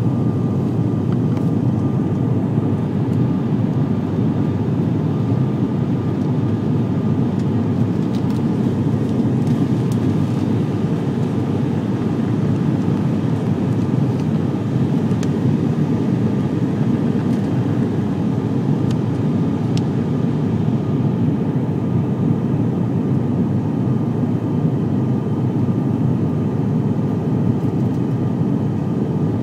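Steady drone of an ATR 72-500's twin turboprop engines and propellers, heard inside the passenger cabin in flight, with a faint steady whine above the low rumble.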